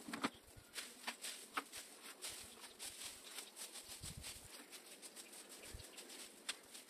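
Dry dead leaves crackling and rustling as they are gathered up by gloved hands: an irregular scatter of small crackles.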